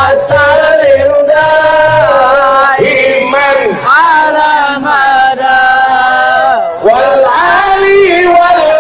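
Sholawat sung through a loud outdoor stage sound system: long, held, ornamented notes that slide between pitches, with a few low drum beats near the start.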